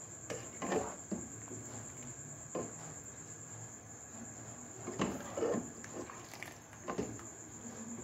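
Slotted spoon knocking and scraping against a cooking pot as pieces of boiled fish are lifted out of the broth, a handful of separate clinks spread over several seconds. A steady high-pitched trill runs underneath.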